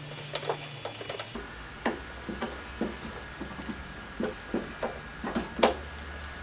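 Irregular light clicks and taps as an aftermarket R/T rear spoiler is handled and set in place on a car's trunk lid, the loudest a sharp tap a little past five seconds in. A faint steady hum comes in about a second in.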